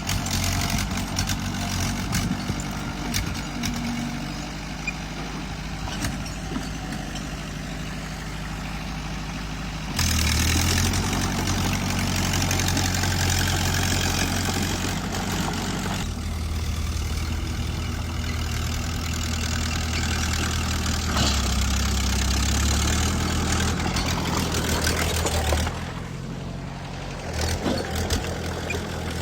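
Bulldozer's diesel engine running and working, with scattered metallic clanks. It gets louder about ten seconds in and drops back briefly near the end.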